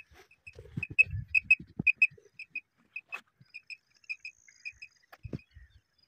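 Hand-played tapcha quail call sounding short high paired pips, about two pairs a second, imitating a female quail to lure wild quail toward a net. A few soft low thumps come from the hand working the call.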